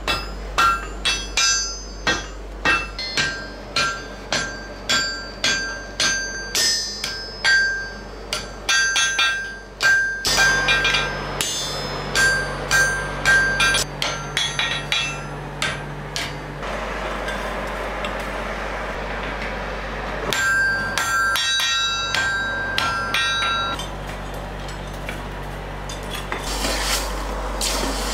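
Blacksmith's hand hammer striking red-hot iron on an anvil, each blow with a bright metallic ring, at an even pace of about two a second. After about ten seconds the blows come in quicker, irregular runs, and they give way near the end to a quieter, steady noise.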